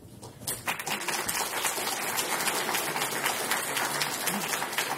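Audience applauding: many people clapping. It starts about half a second in and quickly builds to a steady level.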